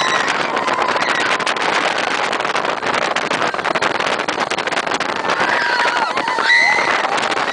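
Rushing wind buffeting the microphone as the open-top Test Track ride vehicle races around its outdoor high-speed loop, with riders screaming in the last couple of seconds.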